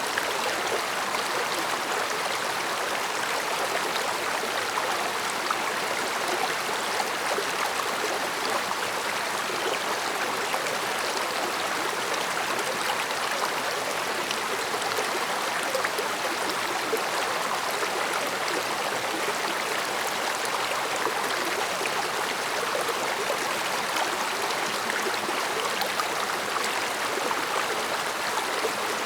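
Mountain stream flowing steadily over rocks, a continuous babbling and gurgling rush with no breaks.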